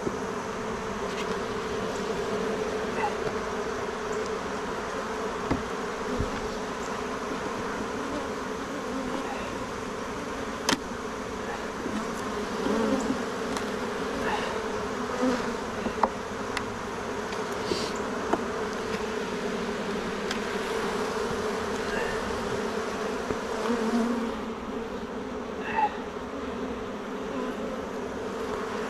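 Honeybees humming steadily from an open hive being inspected, with a few sharp clicks and knocks scattered through.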